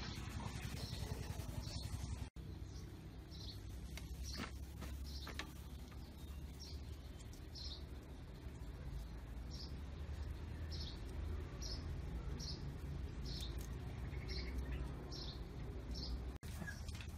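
A small bird chirping over and over, one short high chirp about every three-quarters of a second, over a low steady rumble.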